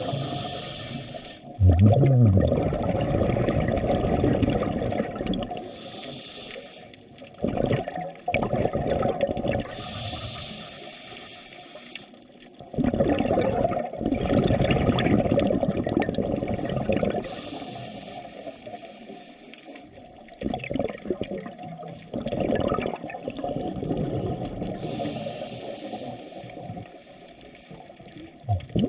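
Water rushing and bubbling around a microphone in the sea, swelling and fading in surges every few seconds.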